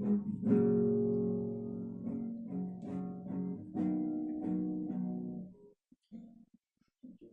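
Background music of strummed acoustic guitar chords, stopping about five and a half seconds in; a few short faint sounds follow.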